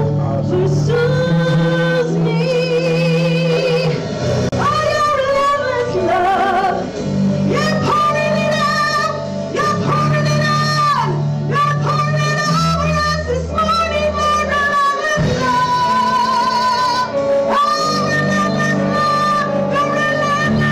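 Live worship music: women's voices singing long, wavering notes over a band with sustained low notes underneath.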